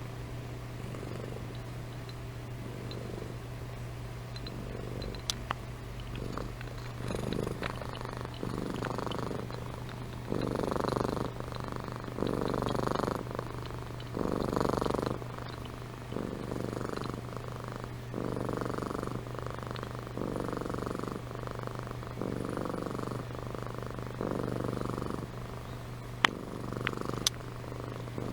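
Domestic cat purring, swelling and easing with each breath about every two seconds, and louder from about seven seconds in. A few short clicks come near the end.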